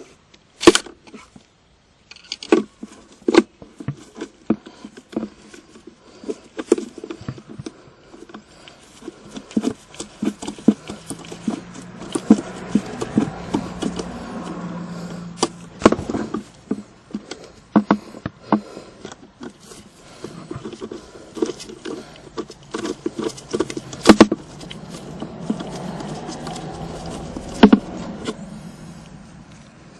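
Irregular clicks and knocks of a socket wrench and metal-on-plastic handling as the two 10 mm nuts holding a car's shift console are undone. A low steady rumble swells twice in the background.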